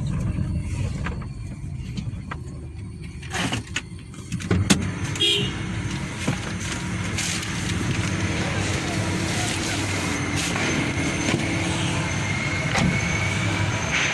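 Nissan Juke running steadily after a cylinder 2 misfire was cured, with a few sharp knocks around four seconds in and more road or wind noise after them.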